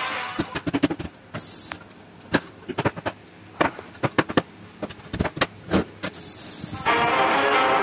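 A series of irregular sharp knocks and clicks, kitchen utensils at work, about a dozen spread over six seconds. Background music comes back in near the end.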